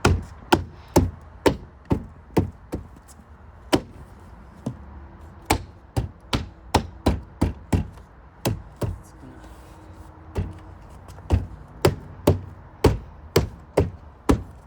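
Repeated sharp knocks and taps on a car's door trim panel as it is fitted back onto the door, coming irregularly about one to three a second with short pauses.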